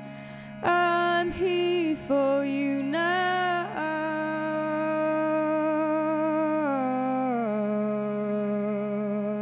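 A woman singing wordless held notes, with a slight waver, over a steady harmonium drone. A few short notes come in the first four seconds, then one long note steps down twice in pitch and stops near the end.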